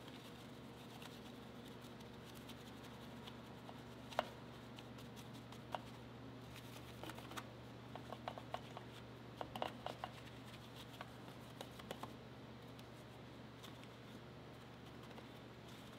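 Small detailing brush scrubbing a soapy wheel around the brake caliper: a soft bristle scratching with scattered light clicks and taps, the sharpest about four seconds in and a cluster near the middle. A steady low hum runs underneath.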